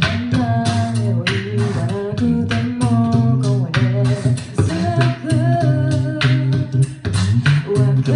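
A cappella group singing in harmony over a sung bass line, with a vocal percussionist beatboxing a steady beat.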